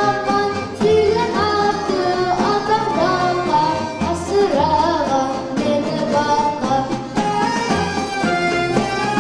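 A boy singing into a microphone, accompanied by a folk-instrument orchestra of plucked strings and accordion.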